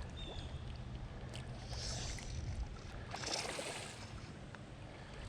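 Creek water running steadily, with a couple of brief splashes about two and three seconds in as a fish is held in the current.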